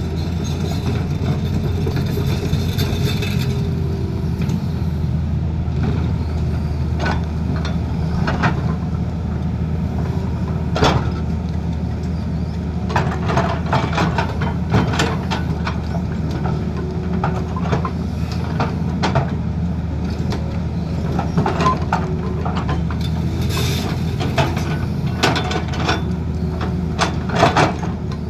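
Excavator diesel engine running steadily, with scattered irregular clanks and knocks, bunched about halfway through and again near the end.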